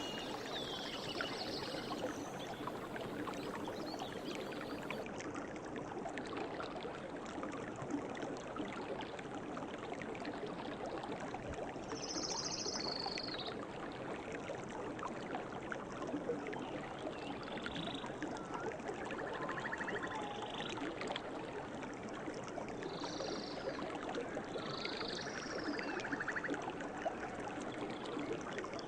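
River water flowing steadily, with birds calling now and then over it: short high calls scattered through, and a couple of brief trills.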